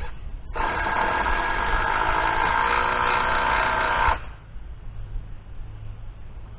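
A power tool runs with a steady whine for about three and a half seconds, starting and stopping abruptly. Its lower tones shift partway through, as if under load.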